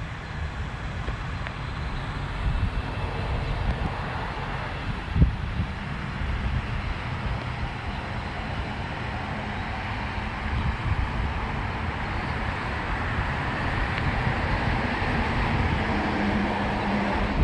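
A vehicle running, under a gusty rumble of wind on the microphone, with one sharp thump about five seconds in.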